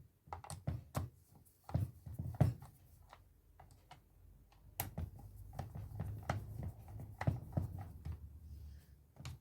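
Scattered small clicks and knocks of hands and a tool handling a Makita jigsaw's plastic housing while it is taken apart to reach the brushes, with a low rumble of handling noise in the second half.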